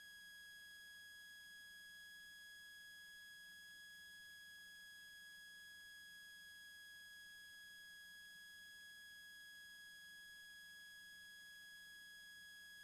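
Near silence with a faint, steady high-pitched electrical tone that holds one pitch throughout.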